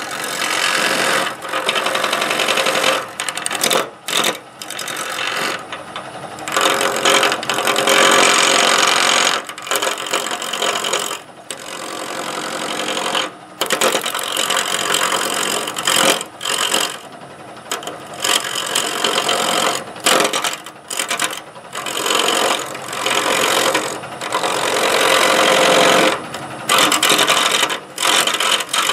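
A wood lathe spinning a square wood blank while a straight-blade chisel cuts into it, making a scraping hiss. The cuts come in stretches of one to a few seconds, with short breaks between them.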